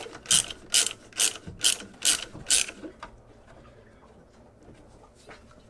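Ratchet wrench clicking through about seven quick strokes, roughly two a second, loosening the alternator's tensioning bolt. It stops about three seconds in.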